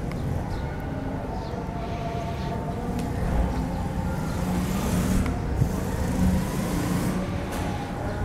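Steady road traffic rumble with a few faint, short, high chirps.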